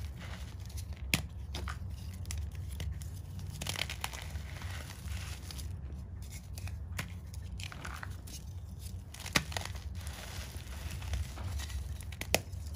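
Chalk being crushed and crumbled, a continuous crunchy crackling with a few sharp snaps, over a steady low hum.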